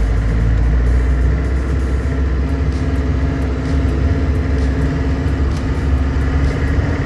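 Mercedes-Benz MB180 motorhome's diesel engine running steadily while the van drives along, heard from inside the cab with road noise.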